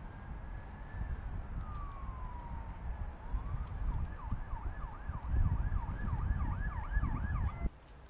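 Emergency vehicle siren sounding a slow rising and falling wail, which switches a little over three seconds in to a fast yelp of about three sweeps a second, then cuts off suddenly near the end. Wind rumbles on the microphone underneath.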